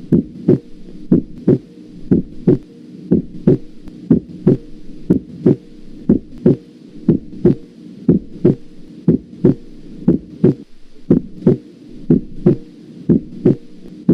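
Human heart sounds heard through a stethoscope: a steady lub-dub of paired low thumps, about one beat a second. It is played to demonstrate the second heart sound (S2), made by the aortic and pulmonary valves closing.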